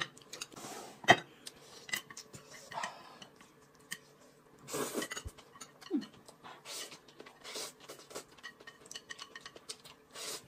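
Chopsticks clicking and scraping against a ceramic plate and a small sauce bowl, in many small irregular taps.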